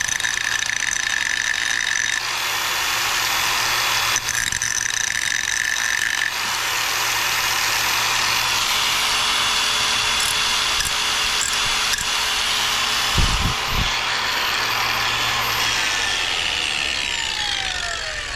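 Power grinder grinding down the side of a stainless steel washer to make it a low-profile shim, a steady grinding noise that shifts in tone as the load changes. Near the end the motor is switched off and winds down, its pitch falling.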